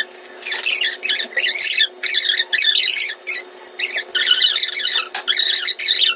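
High-pitched squeaky chattering in quick, choppy bursts, with all the low end cut away: a squeaky comic sound effect.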